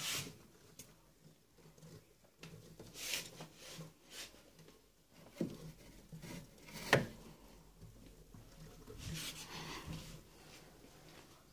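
Hands handling a wooden birdcage and its white feeding dish: scattered rustles, scrapes and clicks, with one sharp knock about seven seconds in and a longer rustle near the end.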